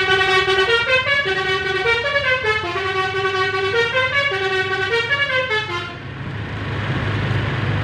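Basuri telolet horn on a bus playing a stepping multi-note tune, loud and clear, cutting off about six seconds in and leaving a low rumble.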